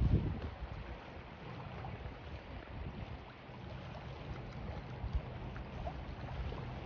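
Wind gusting across the microphone, strongest at the start, over choppy lake water splashing against a concrete pier.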